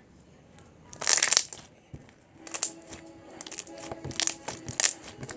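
Pink slime being squished and pulled in the hands: a loud crackling squelch about a second in, then a run of small clicks and pops.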